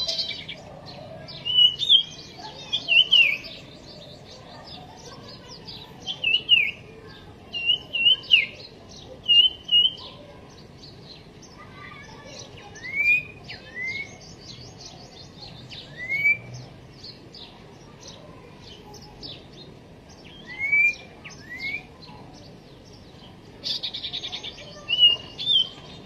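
Common iora singing: short clear whistled notes in pairs and threes, some sliding down and some sliding up in pitch, repeated with pauses of a second or two, with a brief buzzy chatter near the end.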